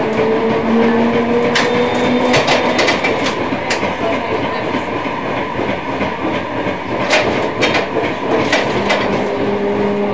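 Munich M-type tram heard from inside the car as it runs along the street: a steady rumble, with a motor whine rising in pitch over the first couple of seconds, and the wheels knocking and clacking over rail joints and points now and then.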